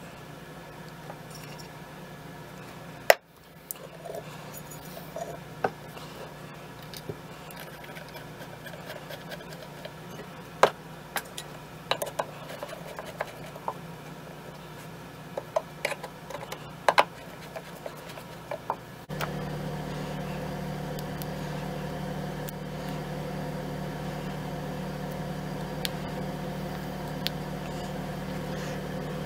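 Scattered clicks and knocks of metal and wood rifle parts being handled and fitted together while a K98k Mauser rifle is reassembled, over a steady background hum that gets louder about two-thirds of the way through.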